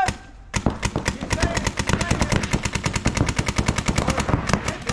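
Paintball markers firing in a rapid, steady stream of shots, starting about half a second in.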